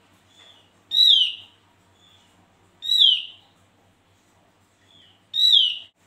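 Caged opior jawa (Javan grey-throated white-eye) calling: three loud, downslurred whistled notes about two seconds apart, each preceded by a soft short note.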